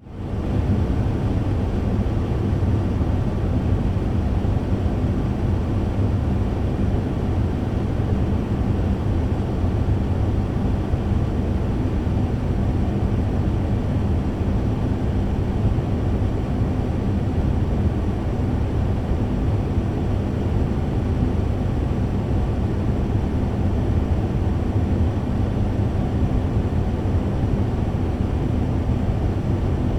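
Electric fan running steadily: an even low whooshing rumble with a faint steady motor hum, fading in at the very start.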